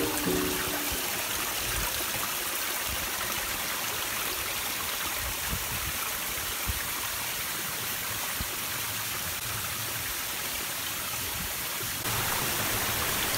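Steady rushing noise that grows slightly louder about twelve seconds in, after the last notes of a music track fade in the first half second.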